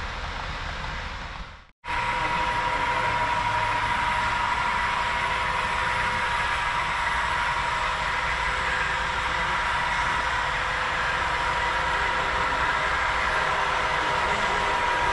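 Sound decoders in HO scale model diesel locomotives running steadily, a continuous engine drone with a steady whine. The sound cuts out briefly just before two seconds in, then resumes slightly louder.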